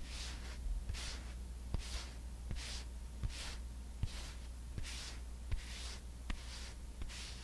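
Soft, evenly paced swishing strokes, about one every three-quarters of a second, each with a faint click, from skincare ASMR props being worked; a low steady hum runs underneath.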